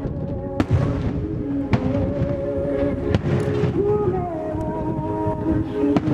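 Fireworks bursting in a large starmine display, several sharp bangs at uneven intervals, over music with a held, sung-like melody played along with the show.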